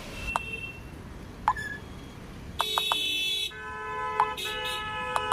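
An electronic buzzing tone starts about two and a half seconds in, then shifts to a held chord of steady electronic tones crossed by quick ticks.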